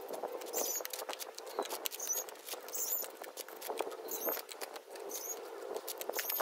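Broken ceramic tile shards clinking against each other as they are picked out of a plastic bowl and set down on cardboard, a steady run of light clicks.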